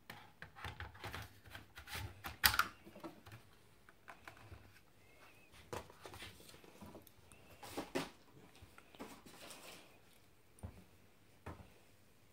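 Scattered hard plastic clicks and knocks as a DJI Phantom 3 Standard and its flight battery are handled; the sharpest knock comes about two and a half seconds in, with a few more later.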